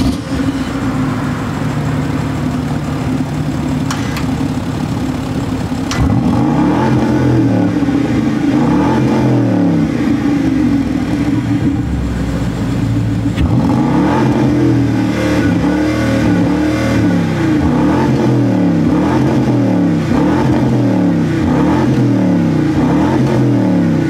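A BMW X6 xDrive50i's twin-turbo 4.4-litre V8 is heard from behind at the exhaust tailpipes. It idles just after start-up, then from about six seconds in it is revved over and over, its pitch quickly rising and falling about once a second.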